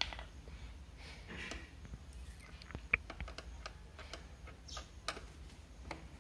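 Screwdriver working a screw out of a motorcycle's plastic fairing panel: faint scattered clicks and ticks of the tip against the screw head, with one sharper click about three seconds in.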